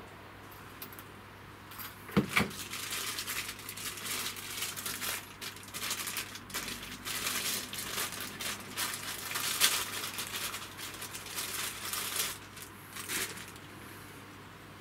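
Handling and fitting of a handlebar phone holder's parts: a sharp knock about two seconds in, then a long run of rustling, crinkling and light clicking that stops near the end.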